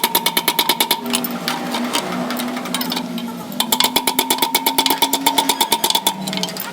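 A machine clattering rapidly and evenly, about a dozen strikes a second, over a steady hum. The clatter eases for a couple of seconds and then comes back.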